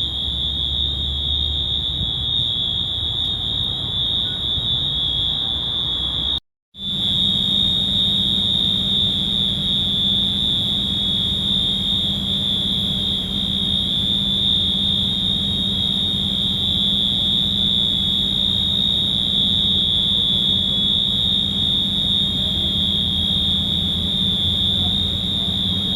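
Allianz Parque arena's fire alarm sounding one continuous high-pitched tone. It breaks off for a split second about six and a half seconds in, then carries on unchanged.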